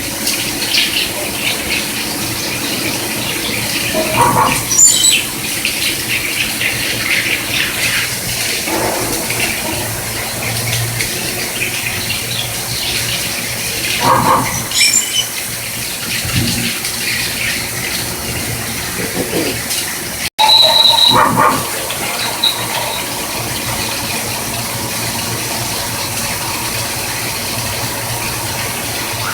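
CNC machining center cutting stainless steel: a steady machine running sound with short squeals from the cutter on the workpiece, three times.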